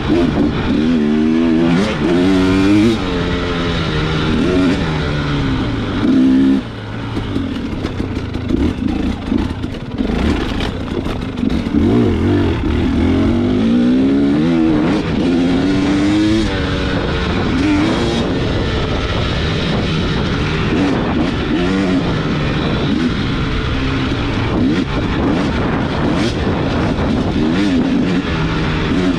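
Off-road motorcycle engine ridden hard on a trail, its pitch repeatedly rising and falling as the throttle is worked and the gears change.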